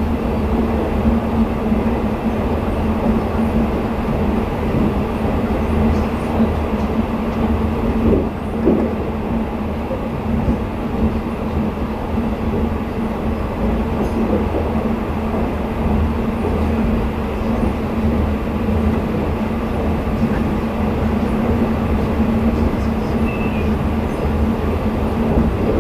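Twilight Express sleeper train running at speed, heard from inside a passenger coach: a steady rumble of wheels on the rails with a constant low hum underneath.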